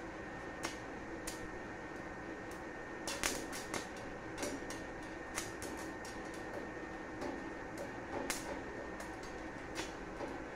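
Stick (arc) welder's electrode being scratched and tapped against a steel plate to strike an arc, giving irregular sharp clicks and short crackles, busiest about three seconds in, over a steady hum. The arc does not catch and hold, which the welder puts down to the current perhaps being set too low.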